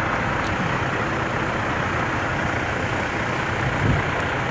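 Steady low rumble of idling diesel semi trucks.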